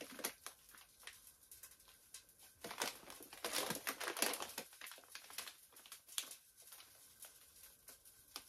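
Plastic noodle packet crinkling and crackling as it is handled in the hands, in irregular faint crackles that are busiest around the middle.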